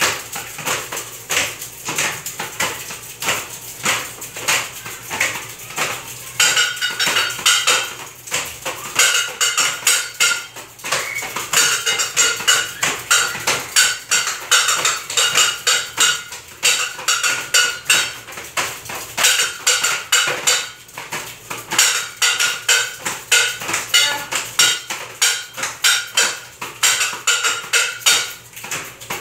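A class of children playing small homemade percussion instruments made from recycled materials together: dense, rapid rhythmic clicking and clacking, with a bright ringing tone joining in short passages several times.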